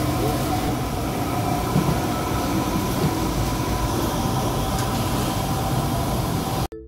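Steady, loud machinery drone of a commercial kitchen's frying station, with a low hum under it. It cuts off sharply just before the end, and a couple of piano notes begin.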